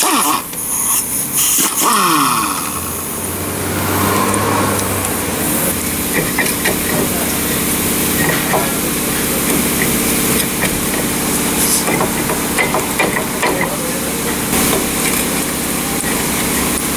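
Pneumatic wrench on a caliper bracket bolt running in short bursts, its pitch falling as it winds down twice in the first few seconds. After that comes a steady engine-like hum with scattered light metallic clicks and knocks.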